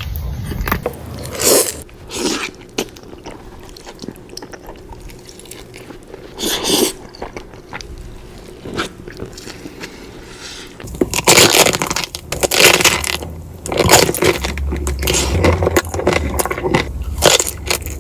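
Close-miked eating: crunchy bites and chewing at an uneven pace, growing into a dense run of loud crunches from about eleven seconds in.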